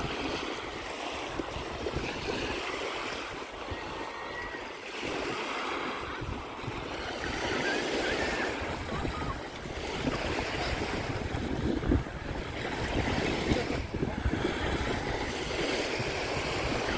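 Small Baltic Sea waves washing onto a sandy shore and drawing back, the surf swelling and fading every few seconds. Some wind rumbles on the microphone.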